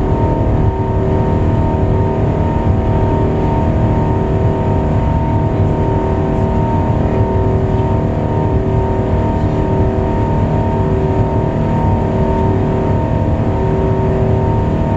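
Airbus A380 jet engines running steadily at high power during takeoff: a loud, even rumble with several steady whining tones over it.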